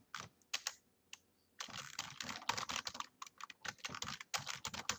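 Typing on a computer keyboard: a few keystrokes, a pause of about a second, then quick, steady typing.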